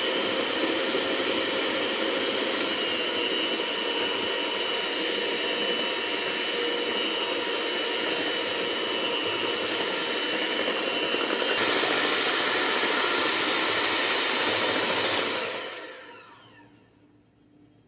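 Electric hand mixer running steadily with its beaters turning through cake batter in a glass bowl. About two-thirds through, its whine steps up in pitch. Near the end it winds down and stops.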